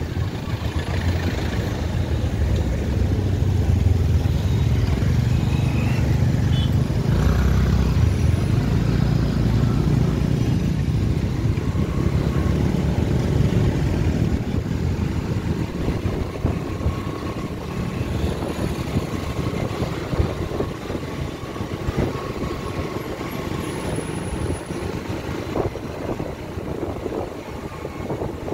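Steady engine and road rumble of a motorcycle on the move, louder in the first half and easing off in the second.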